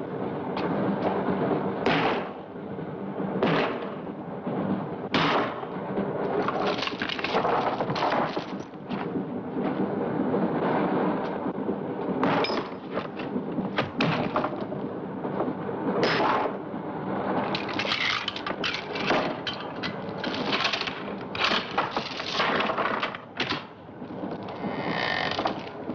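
A chained wooden crate being forced open: repeated knocks, thuds and cracking of wood and metal, coming irregularly every second or so over a steady low drone.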